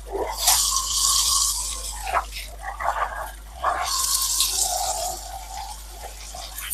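Small brushed DC motor from a hairdryer running underwater with a thin whine. Water sprays and splashes in two loud bursts, the second about four seconds in, and the whine shifts in pitch.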